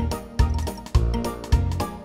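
Instrumental background music with a steady bass beat, a little under two beats a second.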